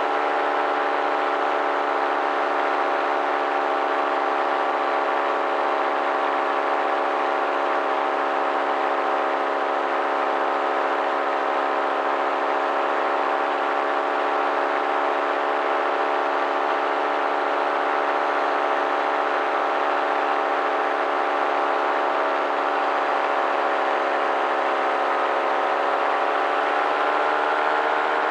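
Paramotor engine and propeller running steadily at cruise power, a constant engine drone with its pitch rising a little near the end.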